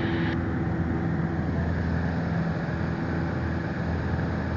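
Piper Warrior's four-cylinder Lycoming engine and propeller droning steadily at climb power, heard inside the cockpit. A faint high hiss cuts off just under half a second in.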